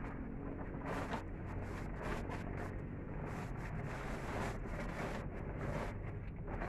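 Plastic tarpaulins rustling and crinkling in irregular bursts as they are pulled and tucked by hand, over a steady low rumble.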